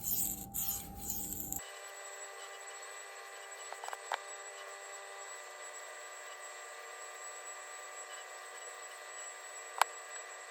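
Knife blade scraping across an oil-lubricated sharpening stone in two short strokes. After about a second and a half the stroking stops and only a faint steady hum remains, with a sharp click near the end.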